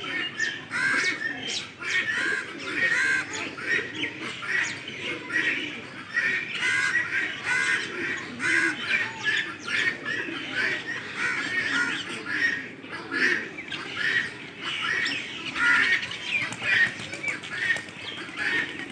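A dense chorus of many small aviary birds chirping and squawking without pause, with short calls overlapping throughout.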